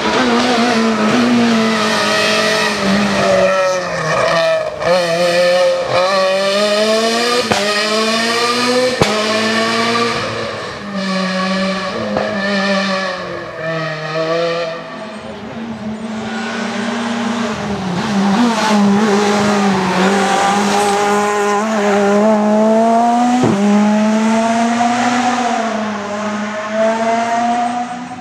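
Peugeot 207 S2000 rally car's naturally aspirated two-litre four-cylinder engine revving hard, its pitch climbing and dropping over and over through gear changes and lifts for the bends, with a few sharp cracks on the shifts.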